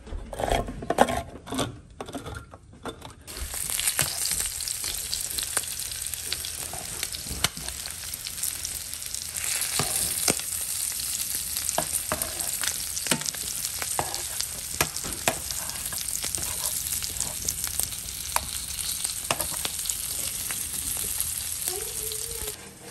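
A hand-held can opener clicks and crunches around a tin can lid for about three seconds. Then pieces of parboiled rabbit and pigeon fry in a nonstick pan with a steady sizzle, and metal tongs click as they turn the meat.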